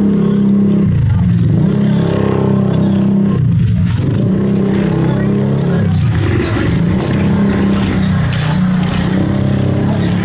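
A vehicle engine running steadily, its pitch dropping and picking up again a few times as it eases off and speeds back up.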